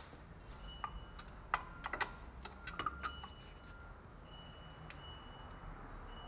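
Scattered light metallic clicks and taps, with a thin ring now and then, from hand work on a disc brake caliper as its pistons are pushed back.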